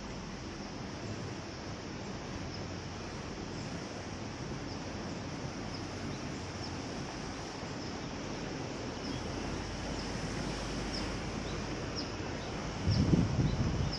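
Steady rush of wind and water, with faint high chirps repeating about once a second and a brief low buffet of wind on the microphone near the end.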